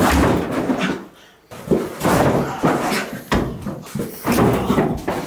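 A man running into and slamming against wooden office doors and furniture: a sudden loud start, then several rough bangs and rattles.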